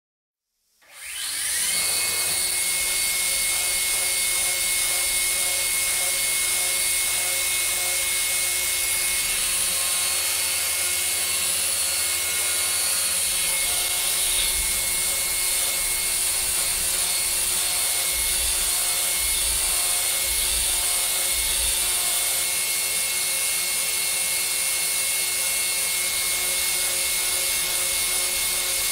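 CNC milling machine cutting metal with a carbide end mill: a steady high spindle whine over a continuous cutting hiss, starting about a second in with a short rise in pitch as the spindle comes up to speed.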